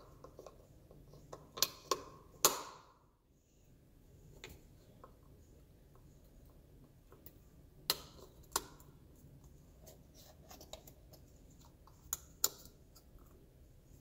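Handling noise from tools on a workbench: scattered light clicks and knocks, some in quick pairs, as air-hammer chisels and the tool are picked up and set down.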